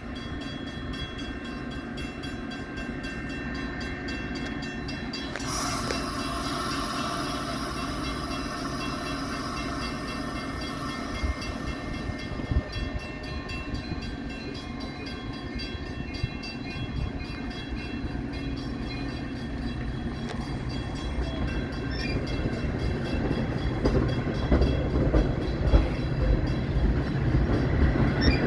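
Metra commuter train running on the tracks: a steady low rumble of the train with some held tones over it, growing louder with wheel clicks on the rail joints near the end.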